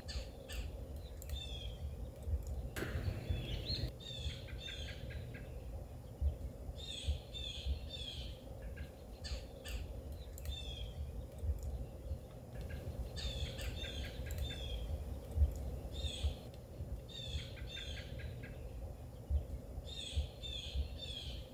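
A songbird calling in the woods: a short phrase of three or four clear, high notes, repeated every few seconds, over a low steady rumble.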